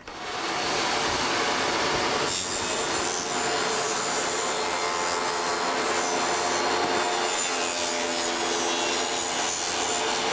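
Table saw starting up and running with a single blade, cutting a shallow groove for a drawer bottom along a plywood drawer part fed against the fence.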